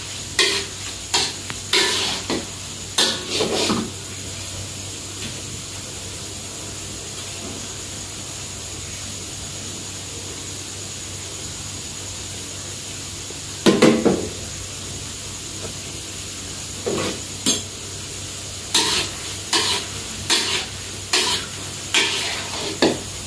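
Kuih siput dough pieces deep-frying in a wok of hot oil with a steady sizzle, and a stirring utensil scraping and knocking against the wok. The stirring comes in several strokes in the first few seconds, once near the middle, and again repeatedly near the end.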